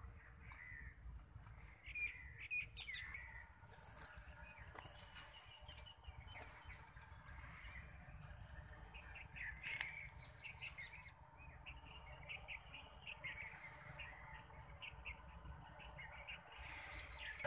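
Birds chirping on and off, short scattered calls, over a faint low rumble.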